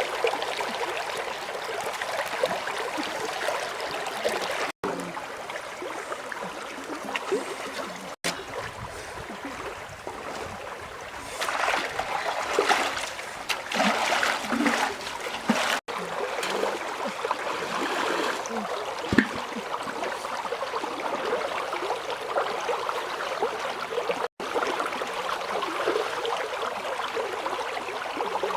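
River water running steadily, with a more uneven, louder stretch of water noise about halfway through. The sound breaks off for an instant four times.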